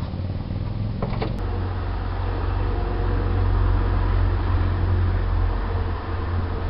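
Motor vehicle running with a steady low rumble, with a sharp click about a second and a half in, after which the rumble grows stronger.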